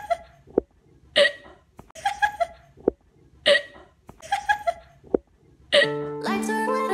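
Four short, sharp vocal bursts from a person, about a second apart, with faint clicks between them. Background music starts near the end.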